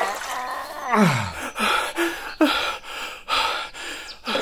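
Cartoon-style voice effects for a small puppet character: a string of short gasps and panting breaths, with one falling vocal sound about a second in.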